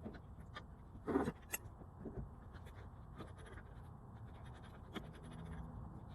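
Scattered light clicks and scraping sounds over a low background hum, with one louder knock about a second in.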